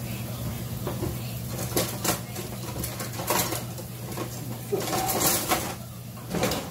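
Kitchen things being handled, a few short knocks and clatters, the loudest cluster about five seconds in, over a steady low hum.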